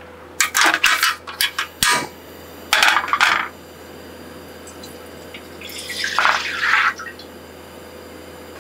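A few sharp clicks and knocks of kitchenware, then cooking oil poured from a bottle into a nonstick frying pan, a splashing pour lasting about a second, about six seconds in.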